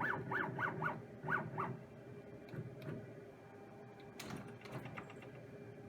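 A dog yapping, a quick run of about eight short barks over the first couple of seconds, then a single sharp clack about four seconds in, over a steady hum.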